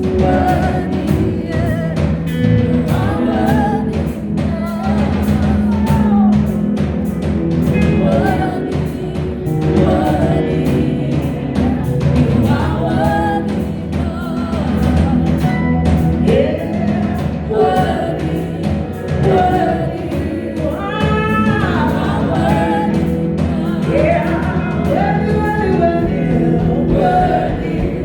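Gospel worship music: singing over a band with a steady beat.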